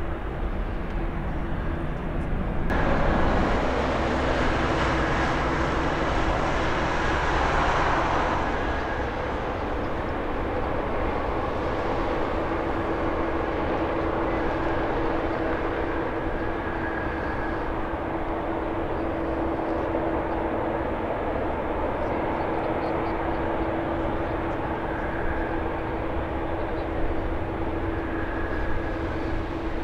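Distant jet engines of a departing Airbus A330-300 climbing away. About three seconds in this gives way to an Airbus A320's jet engines running steadily at taxi power with a constant hum as it lines up on the runway, louder for the first few seconds.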